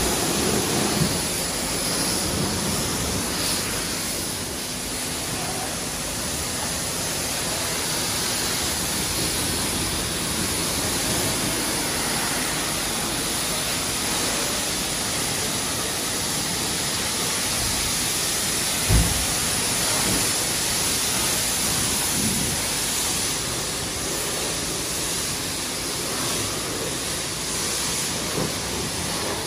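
High-pressure washer spraying a steady jet of water onto a car's body, rinsing off soap foam, with a continuous hiss and splash. A single short thump about two-thirds of the way through.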